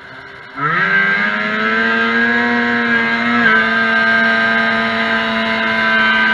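A vintage 340 class racing snowmobile's two-stroke engine idling at the start, then throttled wide open about half a second in: the revs climb quickly and hold high and steady as the sled launches down the track, dipping slightly about three and a half seconds in.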